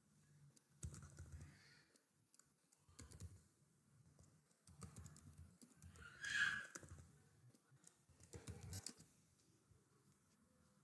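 Faint computer keyboard typing in four short bursts of keystrokes, loudest a little past the middle.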